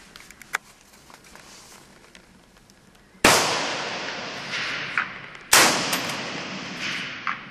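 Two shots from a SIG PE90 (SIG 550-pattern) rifle in 5.56×45mm NATO, about two seconds apart. Each rings on in a long echoing tail in the underground range. A short sharp click comes about half a second in.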